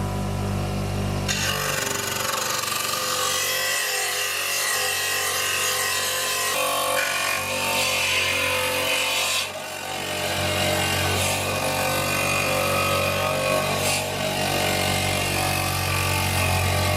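A power tool working on the rusty metal of an oil lantern, a steady rasping noise that starts about a second in, with a short dip about halfway through.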